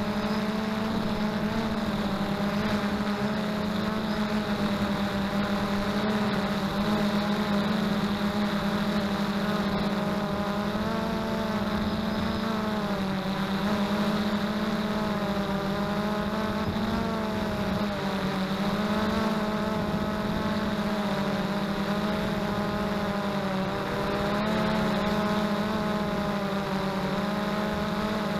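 XK Detect X380 quadcopter's four motors and propellers humming steadily, the pitch wavering slightly up and down as the motors change speed to hold the drone steady in strong wind.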